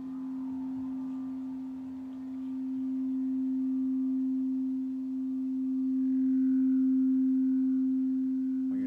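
A frosted quartz crystal singing bowl ringing: one steady, pure low tone, held without a break and slowly swelling louder.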